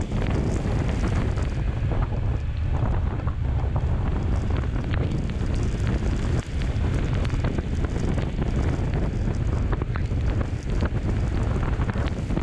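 Heavy wind buffeting on the microphone of a camera mounted on a moving motorcycle: a steady, low rumbling rush with scattered faint clicks.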